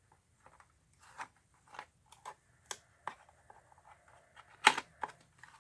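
Irregular light clicks and rustles of packaging and a padlock being handled and unwrapped, with one sharper handling noise near the end.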